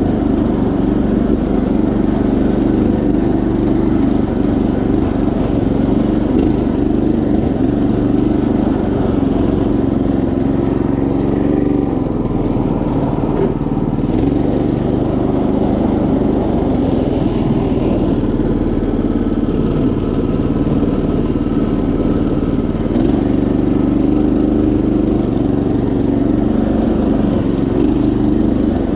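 Predator 212 single-cylinder four-stroke engine on a Craftsman GT5000 garden tractor, running steadily under load as the tractor drives along.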